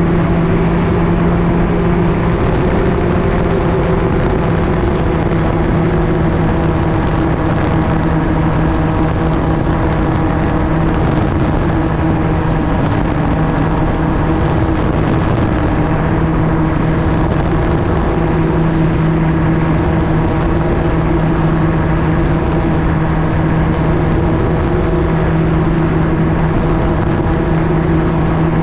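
Gyroplane's pusher engine and propeller running steadily as one low, even hum, under a broad rush of wind and airflow noise. The hum weakens briefly around the middle, then returns.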